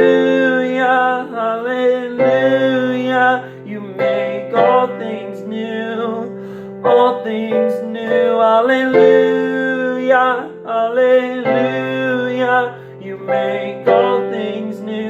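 A man singing a worship song with held, sliding notes over piano chords that change every couple of seconds.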